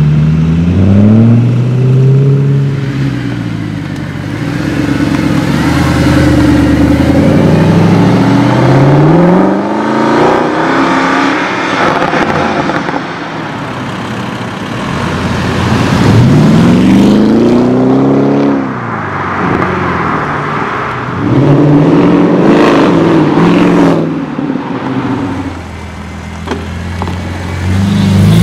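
Wiesmann sports cars accelerating and revving past one after another, the engine pitch climbing and dropping repeatedly as each car pulls away.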